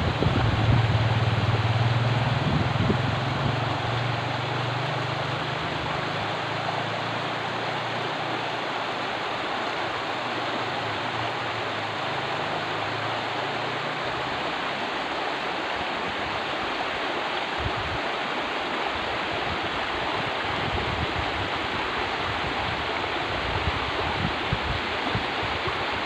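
Shallow, muddy river rushing over a stony bed: a steady, even hiss of moving water. A low rumble sits underneath for about the first half, then fades.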